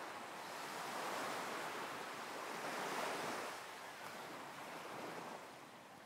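Ocean waves washing ashore, swelling about a second in and again around three seconds, then fading down near the end.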